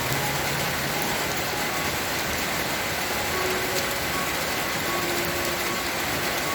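Steady rain falling, an even unbroken hiss of rainfall.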